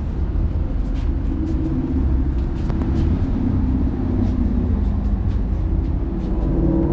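A steady low rumble, with a few faint clicks scattered through it.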